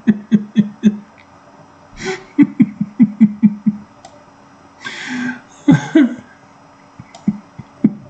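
A man laughing in quick runs of short 'ha' pulses, one run at the start and another about two seconds in, followed by a few breathy exhalations.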